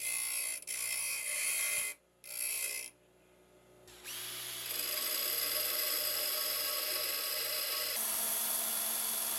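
Steel tip being ground on a Delta bench grinder for about three seconds, with a couple of short breaks. After a brief lull, a Makita cordless drill spins a steel rod against a running belt sander, a steady whirring grind that changes pitch near the end.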